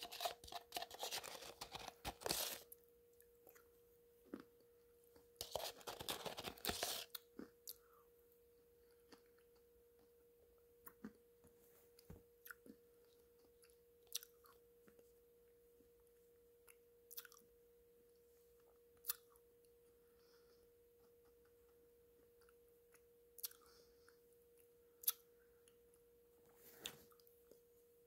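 Close-up mouth sounds of eating a thick black clay-pot paste: two spells of chewing in the first seven seconds, then scattered soft mouth clicks and swallows. A faint steady hum at one pitch lies underneath.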